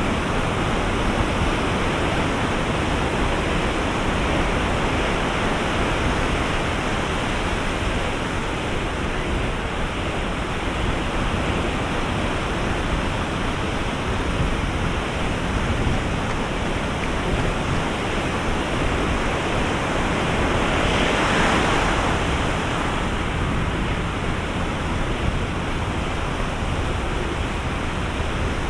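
Ocean surf breaking on a sandy beach: a steady wash of waves, with one wave surging louder and hissier about three-quarters of the way through.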